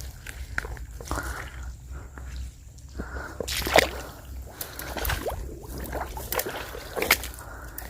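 Water sloshing and dripping at the water's edge, with scattered short clicks and knocks, the sharpest about four seconds in and again near the end.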